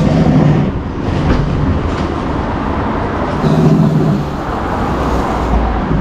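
Steady road-traffic rumble from heavy vehicles going by, swelling once near the start and again about three and a half seconds in.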